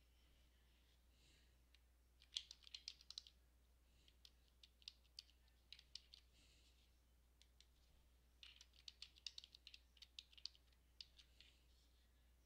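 Faint typing on a computer keyboard: quick runs of keystrokes in three bursts, separated by short pauses.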